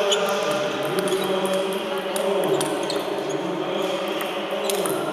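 Table tennis ball clicking off bats and table during a rally, with faint clicks from other tables. Under it runs a louder sustained pitched drone that shifts pitch every second or two, like voices holding notes.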